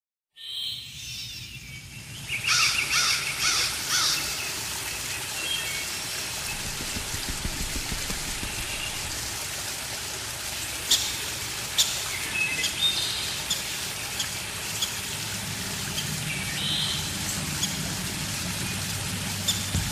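Birds chirping over a steady outdoor ambience, with a few sharp clicks near the middle and a low steady hum coming in about three-quarters of the way through.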